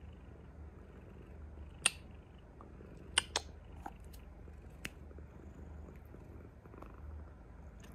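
Calico cat purring steadily, a low pulsing rumble, with a few sharp clicks about two to five seconds in.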